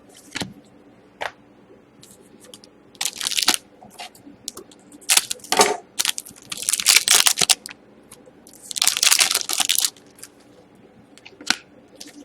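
Crinkling and rustling of plastic and foil trading-card wrappers and sleeves as hockey cards are handled, in four crackly bursts with a few small clicks between.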